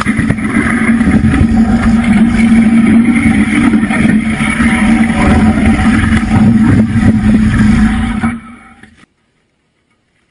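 Loud motorcycle engine running with a steady low drone under heavy road and wind noise while the crashed bike is down on its side. The sound cuts off abruptly about eight seconds in.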